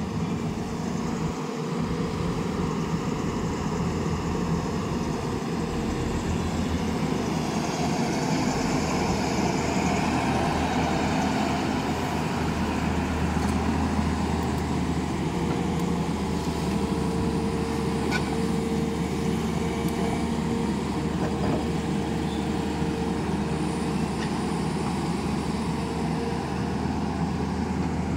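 Tata Hitachi crawler excavator's diesel engine running steadily under load as it digs and swings a full bucket of earth. The low engine drone firms up about twelve seconds in, and a faint higher whine joins it for several seconds.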